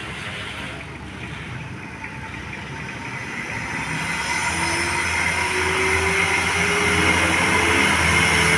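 A large vehicle approaching, its engine and road noise growing steadily louder from about three seconds in. A faint engine tone slowly rises in pitch as it nears.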